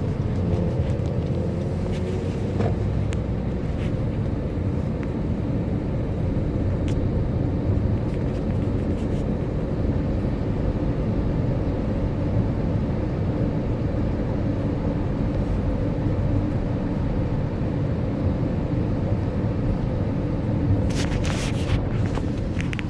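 Car driving, a steady low rumble of road and engine noise heard from inside the cabin, with a short hiss near the end.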